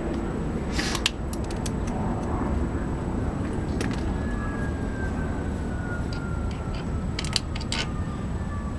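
A few light metallic clicks and taps of parts and hand tools being handled on a small engine, a couple about a second in and a cluster near the end, over a steady low rumble. A faint, slowly falling tone runs under it from about four seconds in.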